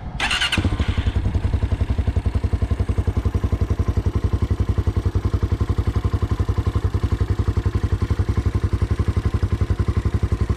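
Hawk X 250 dual-sport motorcycle's single-cylinder engine idling with an even, rapid pulsing beat, after a brief burst of noise in the first half second.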